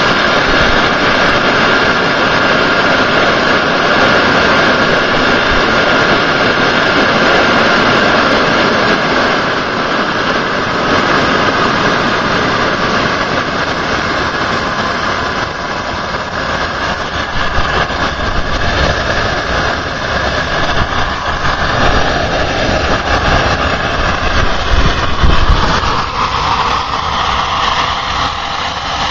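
Home-built jet engine running loud and steady, a rushing noise with a high whine on top. The whine falls a little in pitch about halfway through, and in the second half the sound turns uneven with a low rumble.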